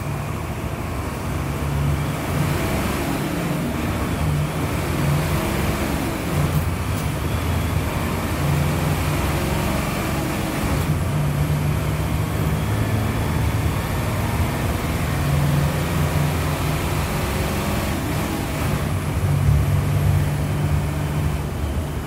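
Mercedes-Benz OF-1721 Euro II bus's turbocharged six-cylinder diesel engine running while the bus stands still, its low note swelling and easing several times, with traffic passing.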